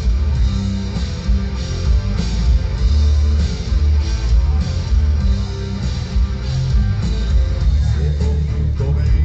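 Live heavy rock band playing loud with distorted electric guitars, drums and heavy booming bass, heard from within an open-air audience.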